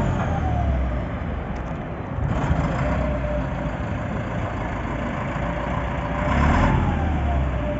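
Caterpillar D5H bulldozer's diesel engine running, swelling briefly about six and a half seconds in. A faint whine falls in pitch twice, once early and once after the swell.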